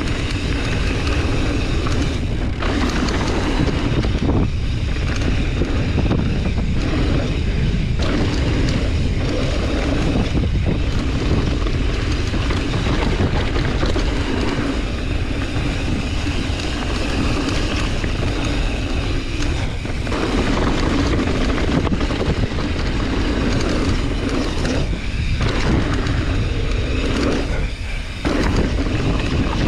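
Mountain bike riding fast down a dirt trail: steady rushing wind noise on the action camera's microphone over the rumble of the tyres, with occasional knocks as the bike hits bumps.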